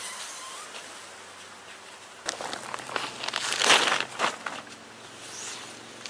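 Nylon tent fabric being handled. After a quiet start, a burst of rustling and crinkling begins a little over two seconds in and lasts about two seconds, with a few sharp clicks and the loudest crinkle in the middle of it.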